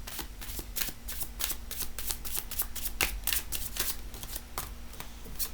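Tarot cards being shuffled by hand, a quick, irregular run of short card flicks and slaps.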